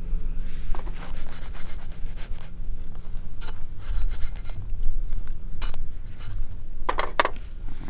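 A fork scraping and clicking against a cast iron frying pan, in a handful of short, separate scrapes with a small cluster near the end, over a steady low rumble.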